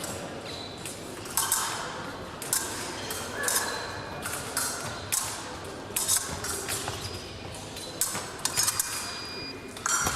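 Épée blades striking and beating against each other in a fencing bout: about ten sharp metallic clinks at irregular intervals, some ringing briefly, mixed with thuds of feet on the piste.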